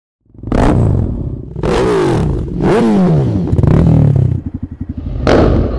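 Motorcycle engines revving in four short, loud blips, each sweeping up and falling back in pitch. An uneven, pulsing idle follows about four and a half seconds in, then one more loud burst near the end.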